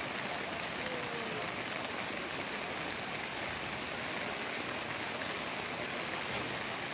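Heavy rain falling in a steady downpour, an even hiss with scattered faint drop ticks.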